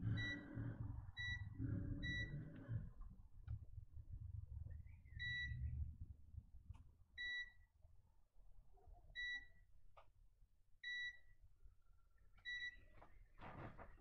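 Short electronic beeps, about eight of them, each a single clear tone lasting a fraction of a second, repeating irregularly one to two seconds apart. A low rumble runs under the first few seconds, and there are a few faint clicks.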